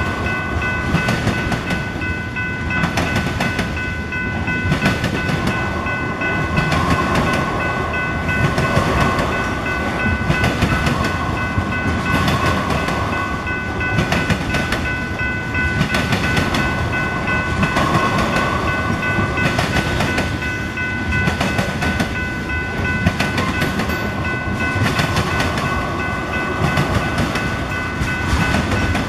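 Freight train of tank cars rolling past at close range: a steady rumble of steel wheels on rail, clacking over rail joints again and again, with a steady high ringing tone over the top.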